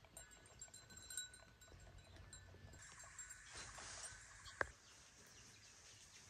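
Near silence: faint farmyard background with thin, high animal calls and one sharp click about four and a half seconds in.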